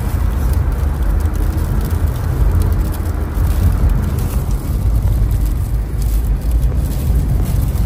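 Car driving, heard from inside the cabin: a steady, loud low rumble of road and engine noise.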